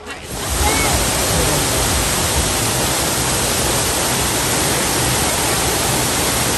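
Steady rush of a tiered waterfall's falling water, coming in suddenly about half a second in.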